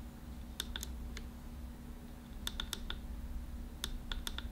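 Small plastic control button on a Zhiyun Smooth-Q smartphone gimbal's handle being clicked repeatedly, in quick clusters of two to four short clicks, as the gimbal's modes are switched.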